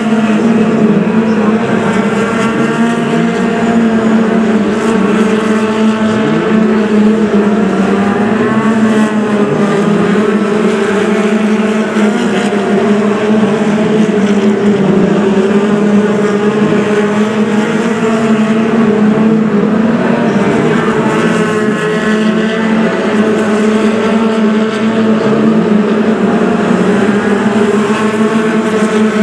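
Several BriSCA F2 stock car engines running hard together on a shale oval, a loud, steady engine note with pitches rising and falling as the cars lap, brake and accelerate past one another.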